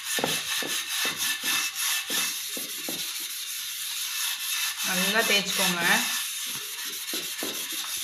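Scratchy rubbing of a dosa griddle being scrubbed by hand with toothpaste paste, in repeated strokes about three a second, working off black burnt-on residue.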